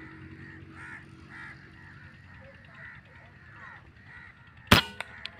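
An air rifle fires a single sharp shot near the end, followed by two fainter clicks. Before it, birds call over and over in the background.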